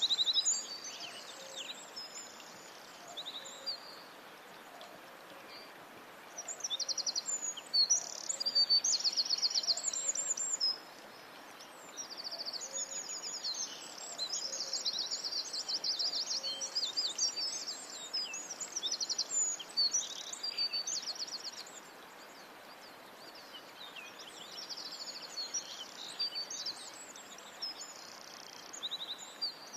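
Songbirds singing in bursts of high, rapid trilled phrases separated by short pauses, over a faint steady background hiss.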